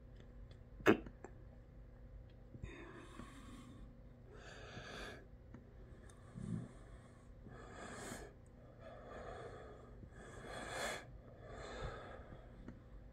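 A person breathing close to the microphone, about six audible breaths, with one sharp click about a second in.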